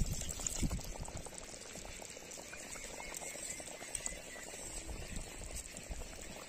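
Tamarind and coconut masala gravy boiling in a pot, a steady dense bubbling with many small pops. It has come to a full boil, the point at which the fish goes in.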